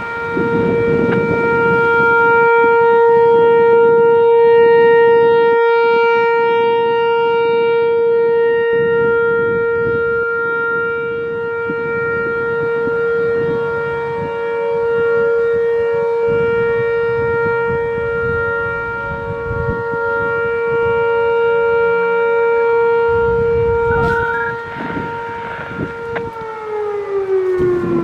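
Whelen Vortex R4 rotating electronic outdoor warning siren sounding its steady Alert tone: one held pitch whose loudness swells and fades slowly as the speaker head turns. About two seconds before the end the pitch starts to fall as the siren winds down.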